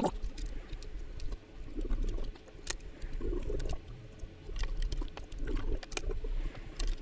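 Scrubbing and wiping on a keyboard with rubbing alcohol: irregular scratchy rubbing strokes with a few light, sharp clicks in between.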